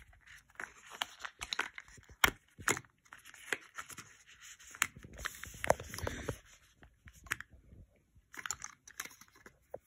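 Paper and cardboard packaging being handled and pulled apart: irregular rustling, crinkling and sharp snaps of card, busiest in the first six seconds and sparser near the end.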